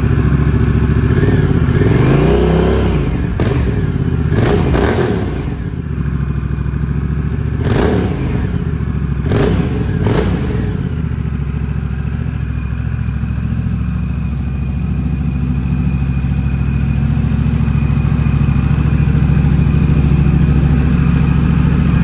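Honda Rebel 1100 DCT's parallel-twin engine running through a Two Brothers aftermarket exhaust with its silencer insert fitted: about five quick throttle blips, each rising and falling in pitch, in the first half, then a steady idle.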